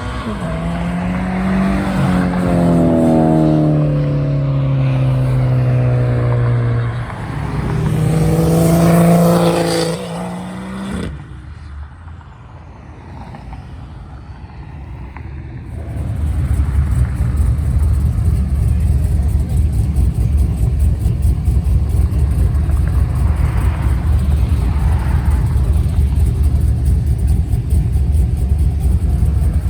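A car engine pulling away with a slowly falling engine note, then a second burst of engine sound. After a sudden change about halfway, a car engine runs close by with a loud, deep, steady rumble and a fast pulse.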